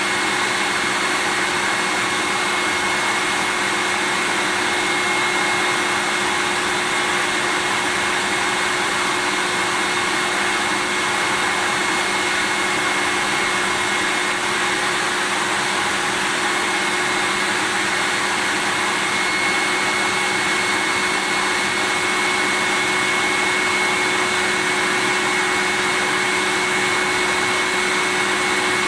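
Vacuum cleaner running steadily: an even rushing airflow noise with a constant high whine from the motor.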